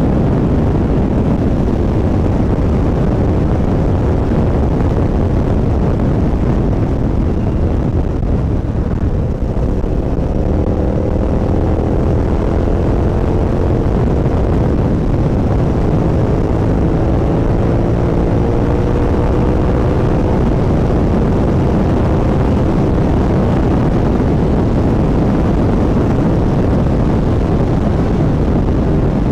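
Suzuki SV650 V-twin engine running under way, heard from the passenger seat over heavy wind and road noise, with its note climbing slowly in the middle as the bike accelerates.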